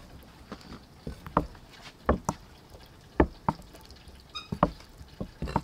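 Kitchen knife cutting through blocks of tofu and knocking on a wooden chopping board: irregular sharp knocks, a couple a second.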